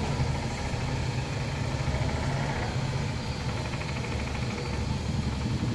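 Steady low mechanical hum, like an engine or motor running at idle.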